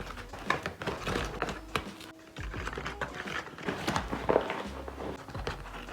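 A spoon clicking, scraping and tapping as self-raising flour is spooned out, an irregular run of quick taps and scrapes.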